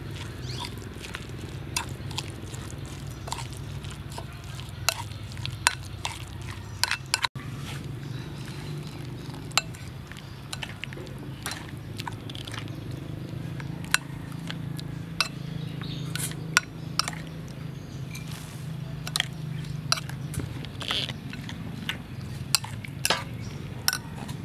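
Metal spoon stirring a wet sauce in a ceramic bowl, with frequent irregular sharp clinks as it knocks against the bowl, over a steady low hum.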